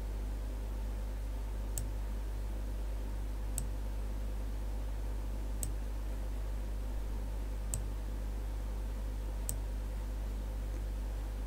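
Computer mouse clicking, five short sharp clicks roughly two seconds apart, over a steady low electrical hum.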